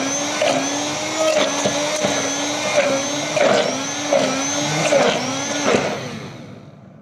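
Electric hand (immersion) blender running in a steel pot of roasted pumpkin and water, pureeing it for soup. The motor pitch dips and recovers again and again, less than a second apart, as the blade bogs in the thick pulp. It stops about six seconds in and fades out.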